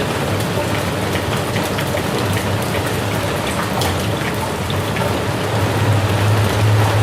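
Steady rain falling, a dense even hiss with scattered individual drops ticking, over a low rumble that grows louder near the end.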